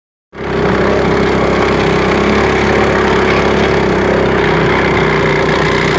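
A small engine running steadily at constant speed with a rough, rattling low end, the motor doing the towing.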